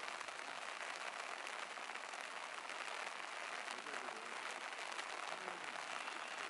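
Soft rain falling steadily: an even hiss with no other sound standing out.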